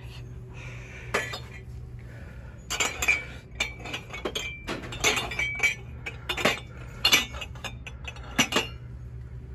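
Ceramic mugs and dishes clinking against each other as they are picked up and set back down: a scattered run of sharp clinks, thickest in the middle of the stretch, some of them leaving a short ring.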